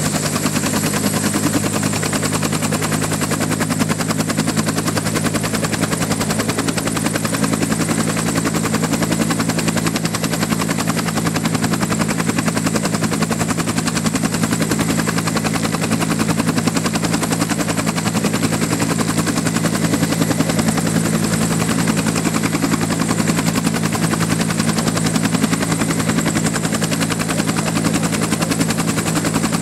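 UH-1 Huey helicopter running on the ground with its T53 turboshaft engine at a steady speed. The two-bladed main rotor gives a rapid, even beat, under a steady turbine whine.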